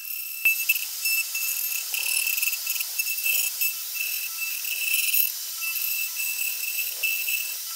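Plunge router running at high speed and cutting wood freehand, a steady high whine that rises and falls in loudness as the bit is worked through the wood.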